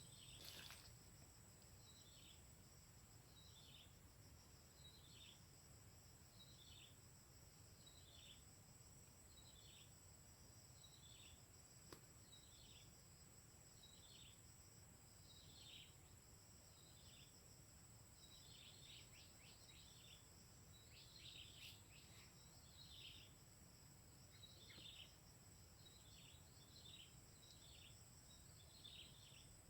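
Faint outdoor ambience: an animal calling with short chirps that each fall in pitch, about one a second and more crowded in the middle, over a steady high whine and a low rumble.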